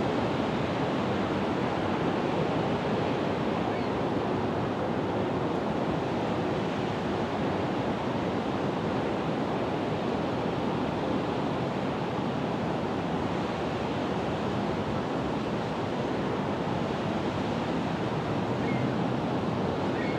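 Steady rushing background noise with no distinct sounds in it.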